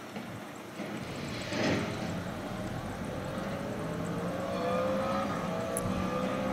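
Vossloh G1000 diesel-hydraulic shunting locomotive's engine running and slowly rising in pitch as it powers up, with a brief swell of noise about a second and a half in.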